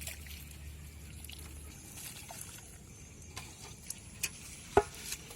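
Small water trickles and scattered light knocks, with one sharp knock near the end that is the loudest sound. A low hum stops after the first couple of seconds.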